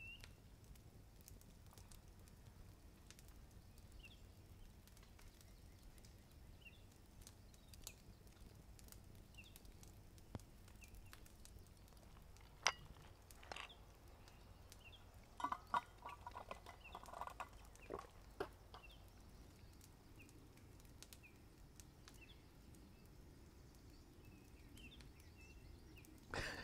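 Near silence with quiet woodland ambience: faint, scattered bird chirps, two sharp clicks about halfway, and a short faint patch of sound a few seconds after them.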